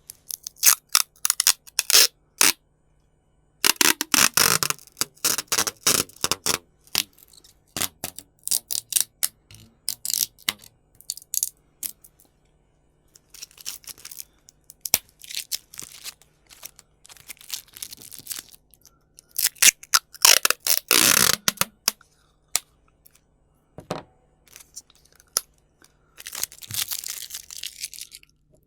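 Scotch tape being pulled off the roll in short crackling rips and clicks, broken by brief pauses. A few longer peels come about four seconds in, around twenty seconds in, and near the end.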